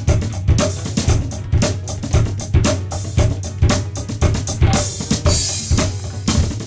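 Electronic drum kit played in a steady beat, kick and snare about two hits a second with quick hi-hat ticks between, and a cymbal crash a little after five seconds, recorded straight in through the line input.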